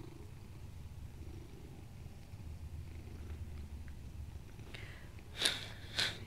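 A domestic cat purring close to the microphone, a steady low rumble. Near the end come two short, sharp noises about half a second apart, louder than the purr.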